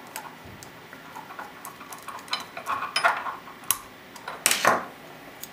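A Phillips screwdriver driving a small screw into an airsoft VSR-10-type hop-up chamber, with the hands handling the parts: scattered light clicks and ticks of metal and plastic, and one louder clack about four and a half seconds in.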